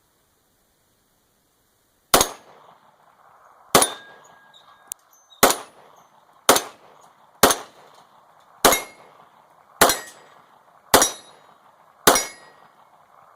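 CZ 75 all-steel 9mm pistol firing nine single shots, at first about a second and a half apart and then about one a second. Each is a sharp crack with a short ringing tail.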